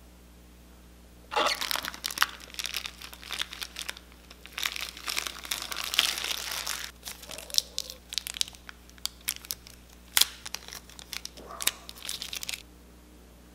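Thin clear plastic wrap crinkling and crackling as it is peeled off a Nendoroid figure's parts by hand, in irregular bursts with short pauses. It starts about a second in and stops shortly before the end.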